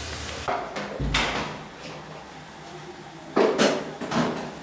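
A few sudden knocks and bumps in a small tiled room. The strongest comes about a second in, and two loud ones follow near the end.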